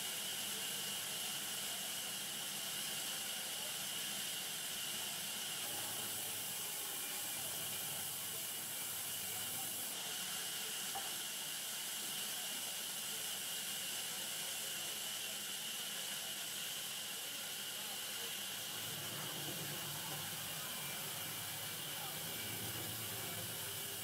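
Sawmill band saw running steadily as logs are fed through it: a constant hiss with a steady high tone in it.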